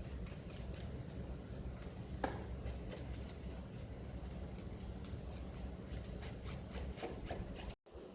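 Quick repeated rubbing strokes of a brush or cloth scrubbing dust off the plastic casing of an old cassette boombox. The sound cuts off suddenly near the end.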